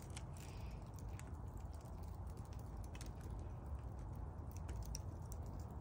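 Wood fire crackling in a fire pit: scattered, irregular sharp pops and ticks over a faint low rumble.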